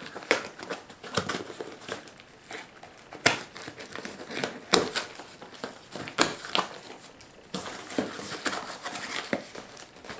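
Parcel packaging crinkling and crackling as it is unwrapped by hand, with irregular sharp snaps throughout.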